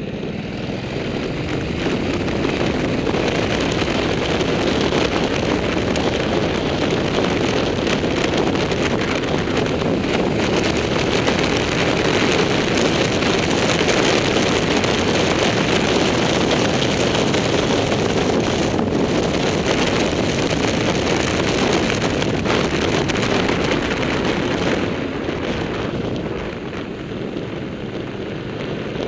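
Motorcycle engine running under way with wind rushing over the microphone, growing louder about two seconds in as the bike speeds up, then easing off near the end as it slows for a hairpin bend.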